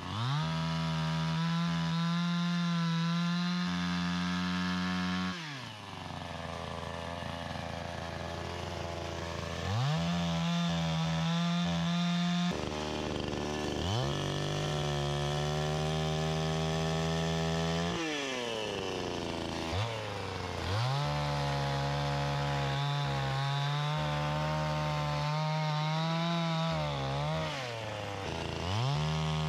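Champion two-stroke chainsaw cutting a fallen log: the engine revs to full speed and holds it for a few seconds while the chain bites, then falls back to idle, four times over, and revs up again at the end.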